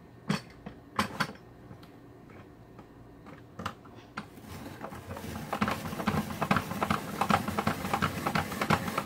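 Hand-crank spiralizer cutting a zucchini into noodles: a few separate clicks and knocks at first, then, about halfway through, a fast, even crunching clatter as the blade cuts the zucchini.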